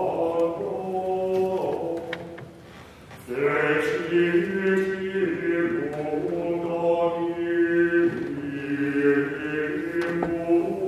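A choir singing chant, with long held notes that move step by step. The singing drops away briefly about two and a half seconds in, then comes back louder.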